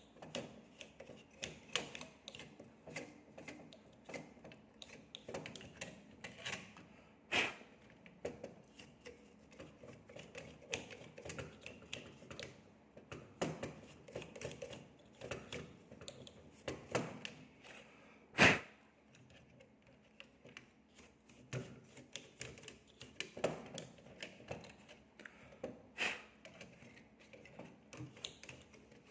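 Irregular light clicks and taps of graphics card parts and small tools being handled on a work surface, with a few sharper clicks, the loudest about two-thirds of the way through.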